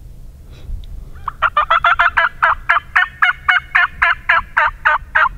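Hen-turkey yelping: a long, fast run of loud, evenly spaced yelps, about five a second, starting about a second in.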